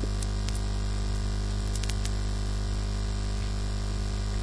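Steady low electrical mains hum with background hiss from the recording setup, with a few faint clicks.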